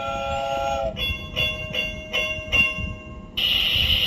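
Toy steam locomotive's electronic sound effects: a steady whistle of several tones held for about a second, then a rhythmic chugging at about two and a half beats a second, then, about three seconds in, a sudden louder steady hissing buzz. Under it the toy's motor and wheels rumble on the plastic track.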